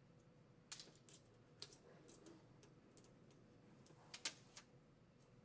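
Faint, scattered small clicks and crinkles, about ten in all and unevenly spaced: the paper liner being peeled off the double-sided installation tape on a plastic dispenser back plate.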